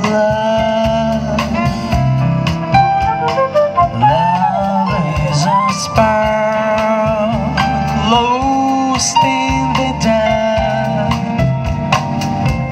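Live jazz ensemble playing, with a woman's voice, violin, woodwind, guitar, keyboard and drum kit; the melody slides up and down in pitch over a steady accompaniment.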